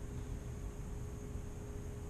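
Steady hiss with a rough low rumble of wind buffeting the microphone, and a faint steady hum underneath.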